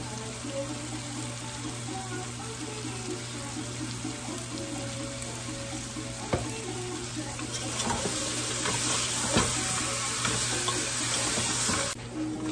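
Pork hock pieces sizzling as they fry in a pot, the sizzle growing louder and hissier in the second half, then cutting off abruptly near the end.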